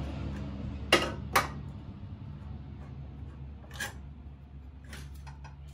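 Metal hand tools clinking on engine-mount nuts and bolts: two sharp clinks about a second in, then a few fainter ones, over a steady low hum.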